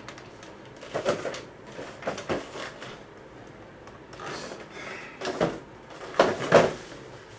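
Cardboard figure box being handled and opened: a series of short scrapes and rustles, the loudest near the end as the inner packaging is slid out of the box.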